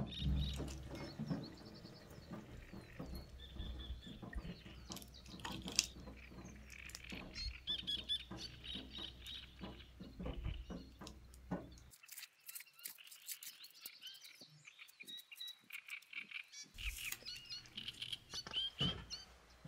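Small birds chirping and twittering in a calm ambience, with scattered light clicks. A low hum underneath cuts off abruptly about twelve seconds in and comes back near the end.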